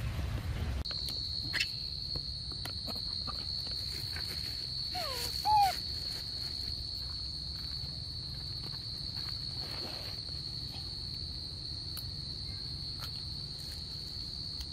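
Steady, high-pitched insect drone that sets in about a second in and holds unchanged, with a short squeaky monkey call about five seconds in and light clicks and rustles of animals moving on dry leaves.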